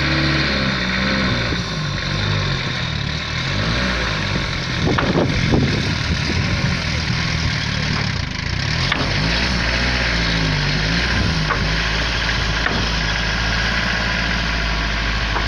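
1948 Bedford bus engine running as the bus is driven slowly, its pitch rising and falling with the throttle, with a louder stretch about five seconds in.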